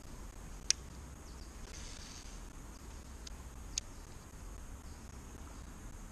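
Steady high-pitched insect drone under a low rumble, with sharp clicks: one under a second in, and a fainter one and a louder one a little past the middle.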